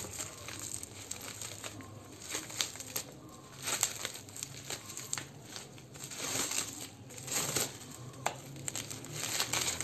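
Plastic bubble-wrap packaging crinkling and rustling in irregular crackles as a small parcel is unwrapped by hand.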